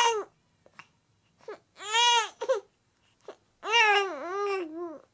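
A baby whining in short, high-pitched cries with little breaths between them: the tail of one cry at the start, a second cry about two seconds in, and a longer one with a wavering, dipping pitch from about three and a half seconds in.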